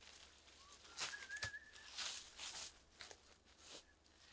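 Footsteps on dry leaf litter and twigs, about two steps a second, with a thin whistle-like note held for about a second near the start.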